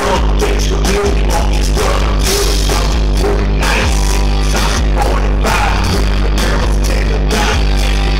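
Country-rap band playing live and loud: electric guitars, bass and a steady drum beat, with a vocalist on microphone over the PA.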